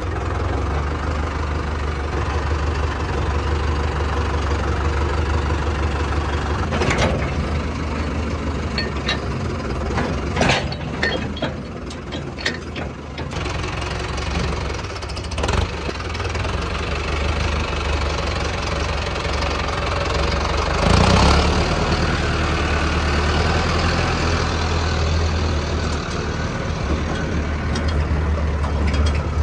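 Mahindra Arjun Novo 605 DI tractor's diesel engine idling steadily with a low throb. A few short knocks and clanks sound over it, the loudest about two-thirds of the way through.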